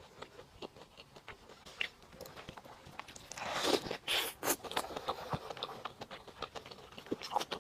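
A person eating a burger close to the microphone: chewing with many small scattered mouth clicks, and a louder crackly stretch of sharp bursts from about three and a half to four and a half seconds in.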